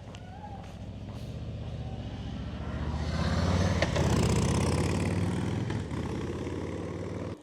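A motor vehicle drives past, its engine hum and tyre noise growing to their loudest about four seconds in and then easing off. The sound stops abruptly near the end.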